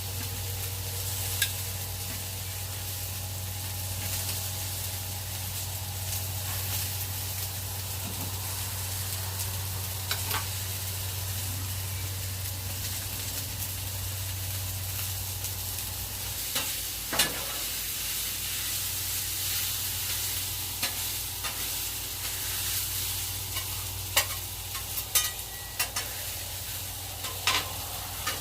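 Cornstarch-coated chicken pieces sizzling as they fry in a pan, with a steady hiss. A utensil stirring the chicken clicks and scrapes against the pan now and then, more often near the end.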